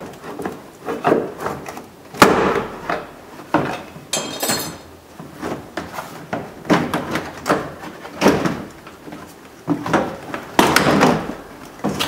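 Plastic retaining clips on a 1996 Ford F-150's interior door trim panel popping loose as the panel is pried and pulled off the door: a string of sharp snaps and knocks at irregular intervals, with the panel rattling against the door.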